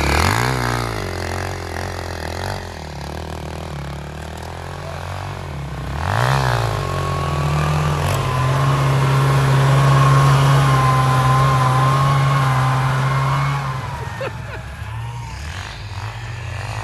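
Sport quad engine revving hard, rising in pitch twice as it accelerates. This is followed by a loud, steady high engine note for several seconds as the quad and a snowmobile race side by side, which fades away near the end.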